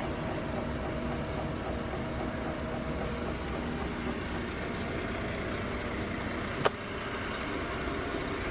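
A vehicle engine idling steadily, with one sharp click about two-thirds of the way through.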